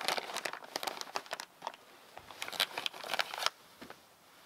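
Dry crackling and rustling made of many quick clicks, dense for the first second and a half, again for about a second after a short lull, then dying away.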